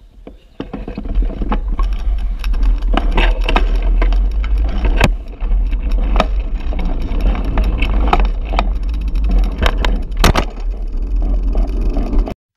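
A mountain bike being ridden, heard close up: a heavy wind rumble with frequent rattling knocks from the bike. It starts about half a second in and cuts off suddenly near the end.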